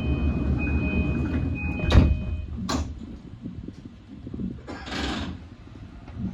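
E235-series train's sliding doors closing: a steady electronic warning tone sounds for about two and a half seconds over a low rumble, and the doors shut with a heavy thud about two seconds in. Air hisses follow twice, briefly and then longer about five seconds in.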